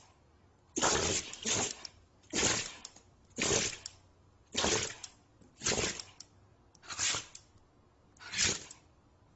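A small short-haired dog making short, breathy bursts through its nose and mouth, about eight in a row, roughly one a second.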